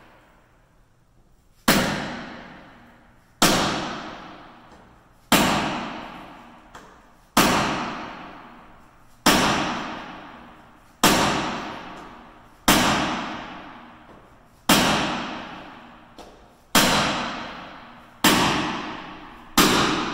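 Hammer blows on a manual hand impact driver set in a flathead slot cut into a seized Torx door-hinge bolt, struck to shock the bolt loose. Eleven sharp strikes at a steady pace of about one every two seconds, each ringing out with a long echo.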